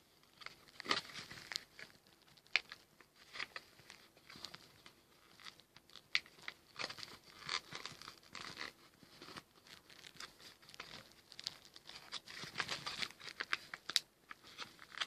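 Plastic packaging of a solderless breadboard being handled and worked open by hand: irregular crinkling and crackling with scattered sharp clicks.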